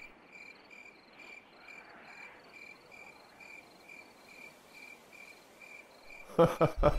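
A cricket chirping steadily, about two to three short chirps a second, over a faint hiss. Loud music comes in just before the end.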